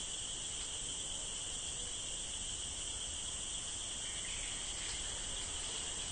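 Steady, high-pitched insect chorus that runs on without a break.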